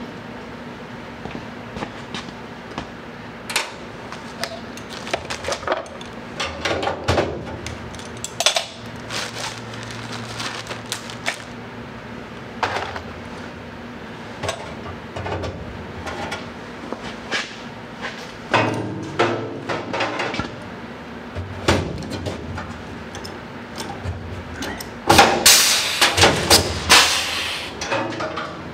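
Workshop handling noise: scattered clicks, knocks and clatter of hand tools and metal parts being picked up and set down, over a faint steady hum. A run of louder, closely repeated strokes comes near the end.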